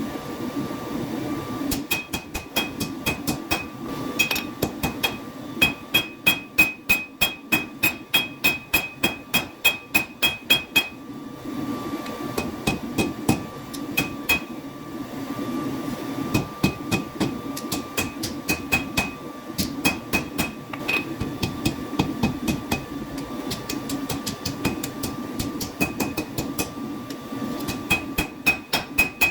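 A hammer forging hot steel on an anvil, about three blows a second, each strike ringing with a bright metallic tone; the blows come lighter and further apart through the middle stretch. A steady roar runs underneath throughout.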